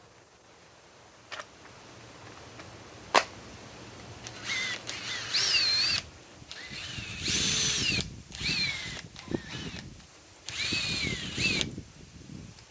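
Metabo HPT WH18DBDL2 cordless impact driver driving a 4-inch TimberLok screw into wood in five separate trigger bursts, its whine rising and falling within each burst. A single sharp click about three seconds in.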